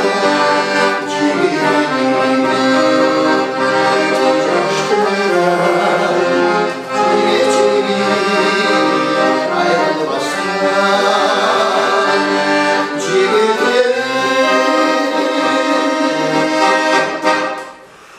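Piano accordion playing an instrumental tune: sustained reedy melody notes over chords, the notes shifting as the bellows work. The music stops about a second before the end.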